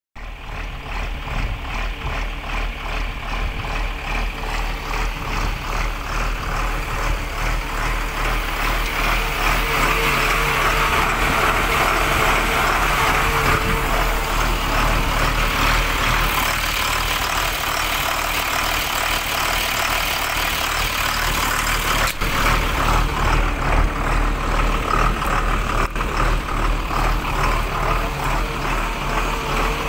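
Diesel engine of a DISD SD200 wheel loader idling steadily with an even pulse, somewhat louder from about eight seconds in.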